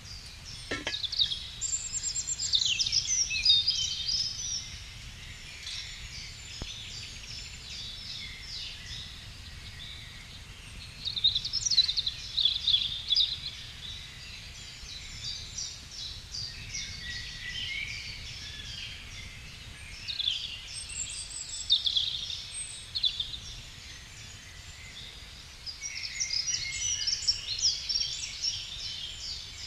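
Songbirds singing, with rapid high chirps and trills coming in several bursts, over a steady low rumble.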